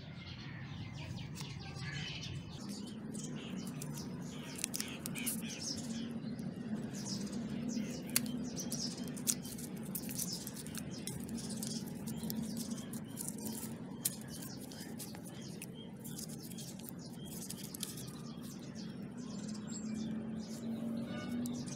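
Small birds chirping again and again over a steady low hum.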